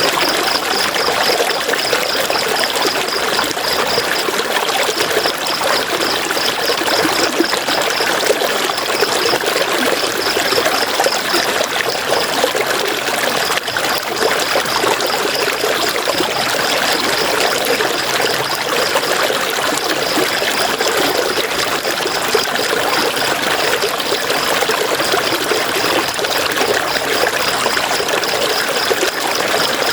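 River water running and splashing over rocks, a steady rushing that does not change. A faint, high, rapid pulsing chirp comes and goes in runs of a few seconds over it.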